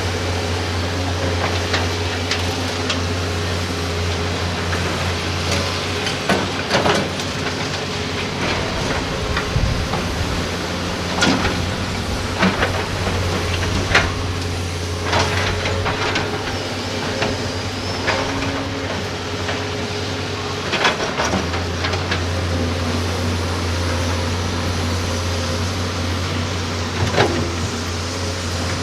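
Heavy diesel engine of an excavator running steadily under load. Sharp knocks and clanks come at irregular moments, about a dozen in all. The low drone dips and changes briefly around ten and twenty seconds in.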